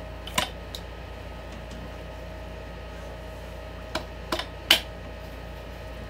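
A few sharp metallic clicks and knocks as a dirt bike's front axle is worked through the wheel hub and fork leg: one about half a second in, then three close together near the end, the last the loudest. A steady hum sits underneath.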